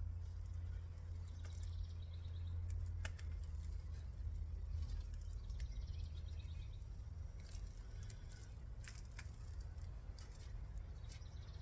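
Faint rustling and scattered soft clicks of soil and potato plants being handled while digging out potatoes, over a steady low rumble.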